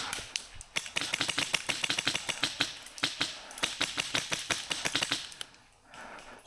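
Airsoft gun firing on full auto: rapid, evenly spaced shots at about ten a second, in long bursts with short pauses between them.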